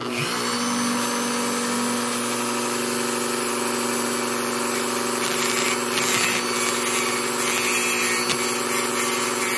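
A Dremel rotary tool with a cutoff wheel switches on and runs at a steady high speed. From about five seconds in, the wheel grinds in short, repeated touches against the end of a piston ring, trimming the ring's end gap a little at a time.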